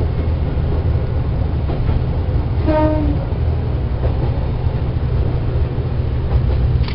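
Diesel railcar running along the track with a steady deep rumble. About three seconds in, its horn gives one short blast of about half a second, and a sharp click comes near the end.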